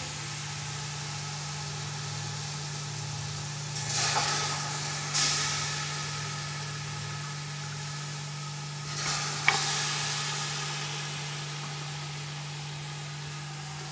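Mutton pieces sizzling as they go into a hot pot. The sizzle surges about four and five seconds in and again about nine seconds in, with a sharp click, as more meat is added, then dies down slowly.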